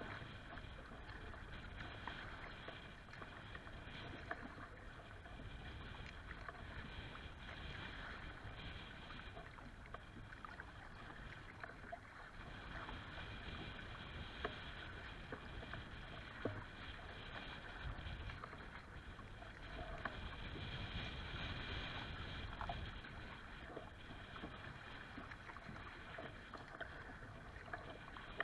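Kayak moving through choppy lake water: waves splashing and slapping against the plastic hull in a steady wash, with occasional light knocks.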